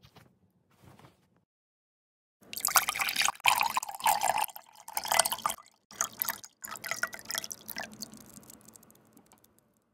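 Liquid sloshing and splashing in a container of misutgaru soy milk drink, starting about two and a half seconds in, coming in uneven spurts and tailing off near the end.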